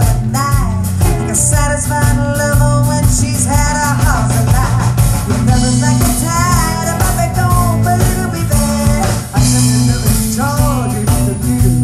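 Live rock band playing through a PA: a woman singing over electric guitar, acoustic guitar, electric bass and drums.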